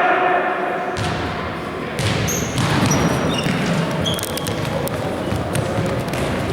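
Indoor futsal match: crowd and player voices in an echoing sports hall, with the ball knocking against feet and the floor, and short high squeaks from shoes on the court.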